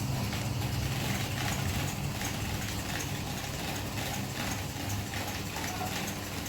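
Electric fan running, with a steady low hum and a fast, continuous rattling tick from its blades.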